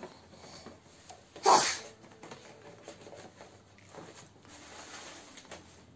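Soft rustling as the wig's packaging and contents are handled, with one brief, loud burst of noise about a second and a half in.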